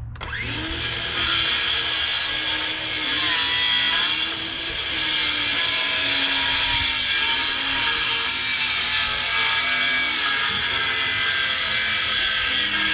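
Electric power saw cutting through wooden fence boards. It starts abruptly and runs steadily, the motor's whine wavering and dipping as the blade loads in the wood.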